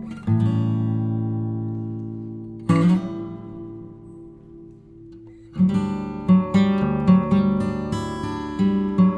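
Background music on acoustic guitar: two strummed chords left to ring out, then steady rhythmic strumming from about halfway.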